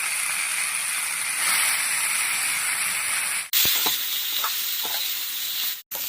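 Finely chopped bitter gourd sizzling as it fries in hot oil, a steady hiss. About three and a half seconds in, the sound cuts abruptly and the sizzling resumes with a few short clicks and scrapes.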